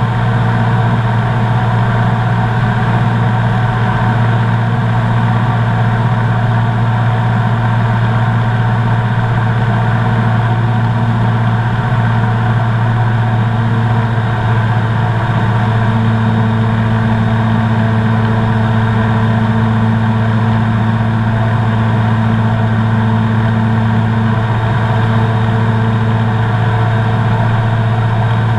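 Comco Ikarus C42B ultralight's engine and propeller droning steadily in level flight, heard from inside the open-sided cockpit with a deep, even hum.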